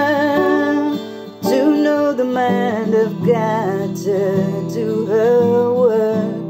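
A woman singing a slow song, accompanying herself on an acoustic guitar, with a brief pause in the singing about a second in.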